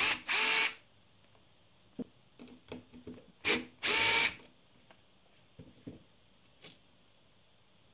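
Milwaukee cordless driver backing out the fuel tank screws of a Husqvarna 440 chainsaw, in short runs of motor whine: one at the start and another about three and a half seconds in. Light clicks and taps of screws and parts being handled come between the runs.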